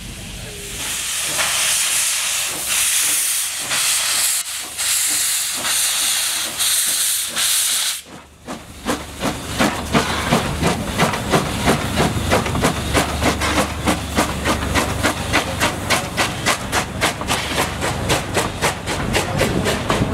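Steam locomotive starting away: loud hissing steam with slow chuffs for about eight seconds, then, after a brief dip, a run of exhaust beats that quicken as the train picks up speed.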